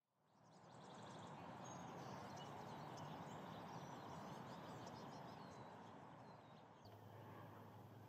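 Faint high chirps from a feeding flock of Lawrence's goldfinches over steady, quiet outdoor background noise. Near the end a low steady hum comes in.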